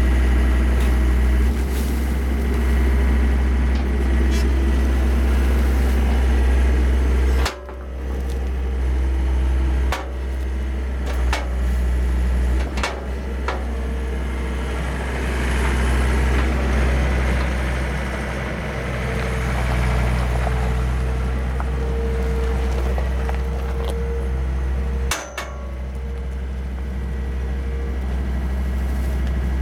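John Deere skid steer loader's diesel engine running steadily under hydraulic work, with several sharp metal clanks from the bale slicer attachment about halfway through.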